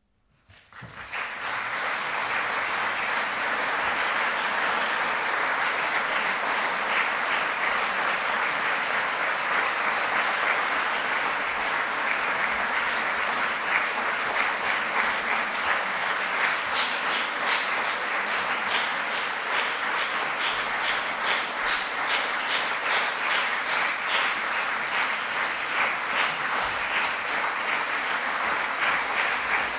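Audience applauding steadily after a solo piano performance. The applause starts about a second in, right after a moment of quiet following the last piano note, and keeps up without a break.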